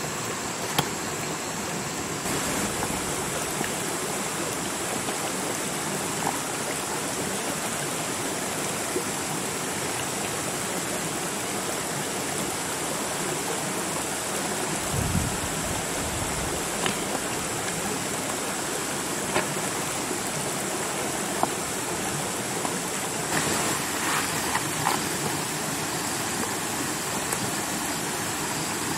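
Steady rush of running water, with a few sharp light clicks scattered through it, a dull low thump about halfway, and a cluster of small knocks near the end.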